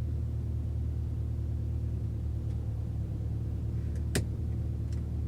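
Steady low hum of a Toyota RAV4 running, heard inside the cabin, with a single sharp click about four seconds in.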